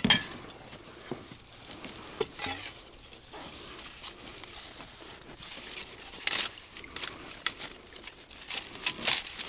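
Reed stems rustling and crackling as they are handled and pushed through, irregular, with louder rustles about six seconds in and near the end.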